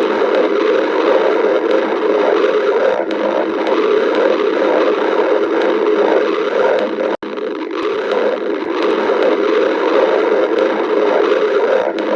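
Stomach growling, continuous and churning, with a brief break about seven seconds in.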